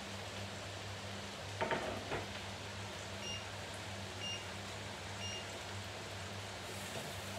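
A few sharp kitchen knocks about a second and a half in, then a kitchen appliance beeping three short times, one second apart, over a steady low hum.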